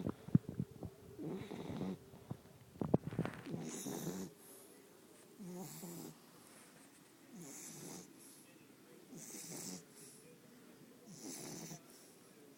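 A sleeping 10-week-old Olde English Bulldogge puppy snoring: one breathy snore about every two seconds, five in all. A few sharp clicks come in the first three seconds.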